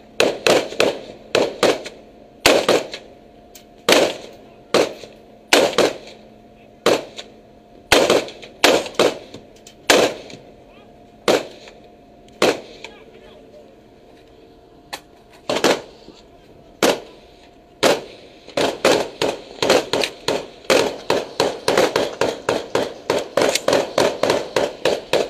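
Rifle gunfire: single shots roughly a second apart, a lull of a few seconds around the middle, then a fast run of shots, several a second, through the last third.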